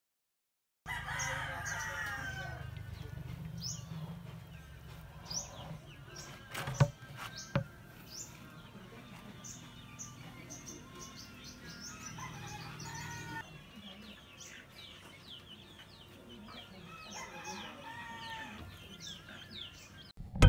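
Farmyard ambience: chickens crowing and clucking, with small birds chirping throughout. A low steady rumble stops about halfway, and two sharp knocks come about seven seconds in.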